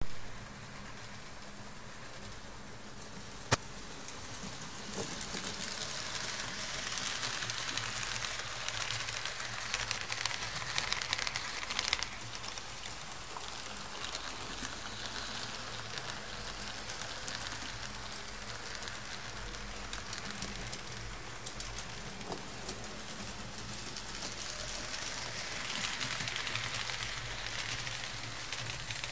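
H0-scale Fleischmann model train running on the layout's track: a steady rattling hiss of small wheels on the rails, swelling as the train passes close. A single sharp click about three and a half seconds in.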